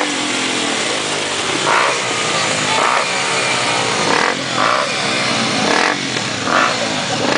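Single-cylinder 250 cc four-stroke motorcycle engine running hard on a dynamometer. Its note slides up and down in pitch as it is revved under load.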